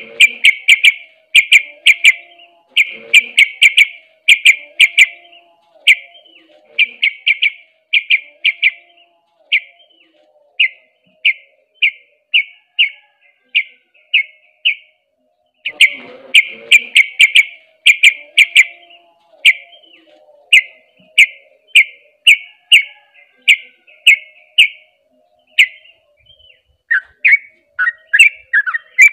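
Yellow-vented bulbul (trucuk) singing the rapid, repeated song that bird keepers call ropel. Dense runs of short, sharp notes thin out into single notes at about one and a half a second, then a second dense run comes about halfway through. A burst of rising and falling chirps follows near the end.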